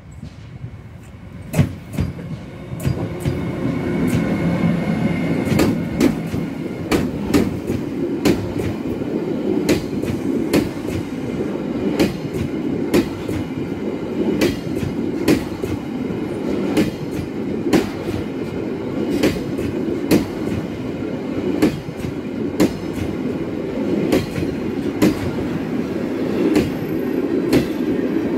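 A Siemens Vectron electric locomotive comes up and passes, followed by a long train of empty flat wagons rolling by: a steady rumble that builds over the first few seconds, punctuated by sharp clickety-clack of wheels over the rail joints.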